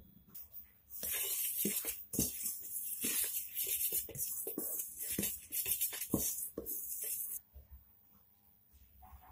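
A metal fork stirring whole wheat flour and jaggery syrup in a stainless steel bowl: steady scraping and rustling with frequent clicks of the tines against the steel. It starts about a second in and dies down a couple of seconds before the end.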